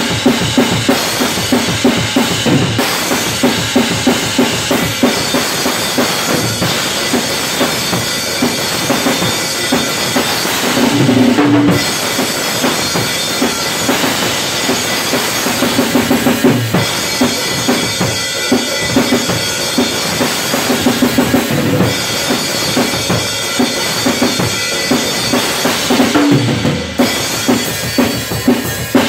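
Acoustic drum kit played fast and hard: rapid bass drum and snare strokes under a constant wash of cymbals, with short fills on the toms about eleven seconds in and again near the end.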